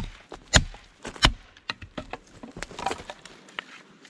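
Wood being split for fire kindling: sharp wooden knocks, three loud strikes in the first second and a half, then lighter taps and knocks.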